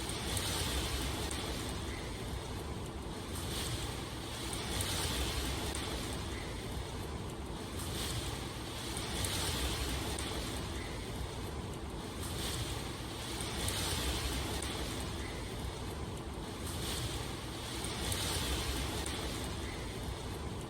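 Continuous wash of water noise that swells and eases about every four and a half seconds.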